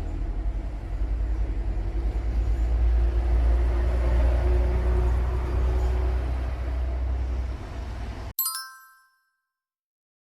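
A loud, throbbing low rumble that cuts off abruptly, followed at once by a single bright chime that rings briefly and fades.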